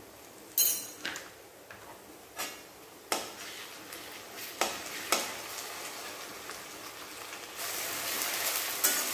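A spatula scraping and knocking against an aluminium kadhai as ginger-garlic paste is stirred into frying onions and spices. Near the end a steady sizzle of the paste frying in oil grows louder.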